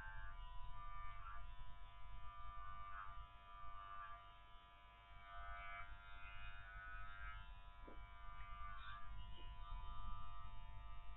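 Electric dog clippers buzzing steadily as they cut through a Spanish water dog's curly coat, with a brief dip in level near the middle.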